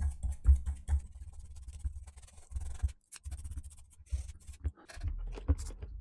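Toothbrush scrubbing dried cola residue off a laptop's heatsink and heat pipe: quick scratchy strokes with low thuds of handling, pausing briefly about halfway.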